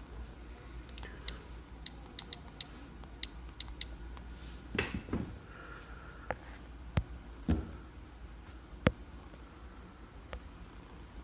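Scattered light clicks and taps from handling of the devices, with a run of faint ticks in the first few seconds and a few sharper knocks, the loudest about nine seconds in.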